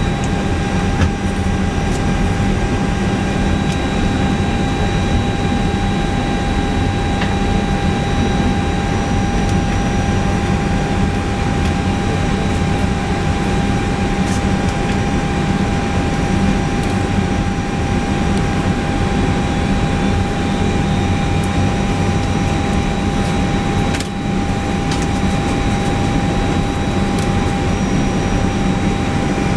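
Steady cockpit noise of an Airbus A319 on the ground: a constant rush of ventilation air with a low hum and several steady high whines, unchanging in pitch, and a single click with a brief drop in level about 24 seconds in.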